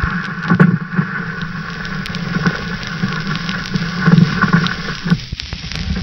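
Old-film soundtrack noise over the head leader: a steady hum and hiss with frequent crackles and pops, as from a worn optical track on a projector. The hum drops out about five seconds in, leaving mostly crackle.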